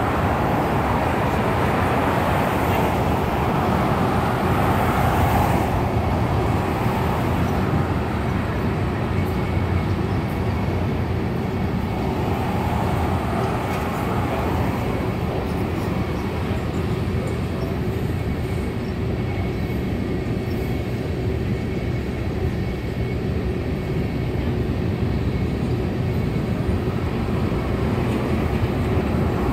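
A long freight train of tank cars rolling past, a steady rumble of wheels on rail. Road traffic is mixed in: a car's tyre noise swells as it passes near the start, and another passes about halfway through.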